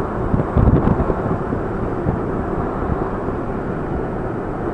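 Steady road and engine noise heard from inside a moving vehicle, with a few low thumps about half a second to a second in.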